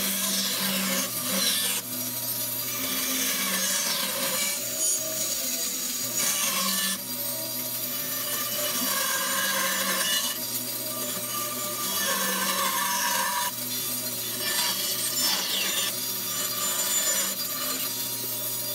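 Bandsaw running, its blade cutting a notched, curved profile in a square blank ripped from a 2x4. The cutting noise changes several times as one cut ends and the next begins, over a steady motor hum.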